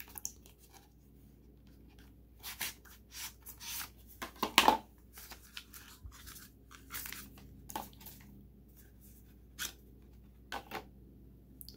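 Cardboard phone-case box being torn open at its pull tab and the clear plastic case slid out of its packaging: scattered short rips, rustles and scrapes, loudest about four to five seconds in and sparser near the end.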